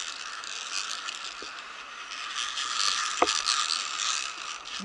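Metal climbing gear rattling and scraping along a steel safety cable as a climber steps across a swinging plank walkway. A few sharp knocks come about three seconds in.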